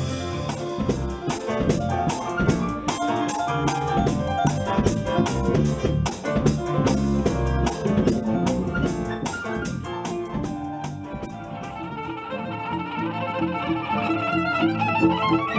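Soul/R&B band playing: keyboards over a steady drum-kit beat with cymbal strokes about three a second. About twelve seconds in the drums drop out and a violin takes over, playing with vibrato and climbing in pitch near the end.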